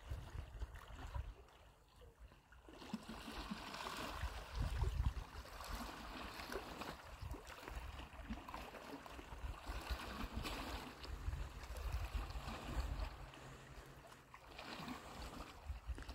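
Small waves lapping and gurgling at the shoreline of a calm sea, swelling about three seconds in, over a low rumble that comes and goes.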